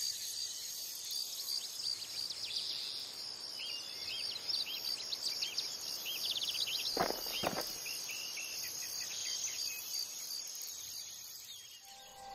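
Crickets chirping: a steady high chirring with many short repeated chirps over it. Two quick rising calls come about seven seconds in, and the chirring fades near the end.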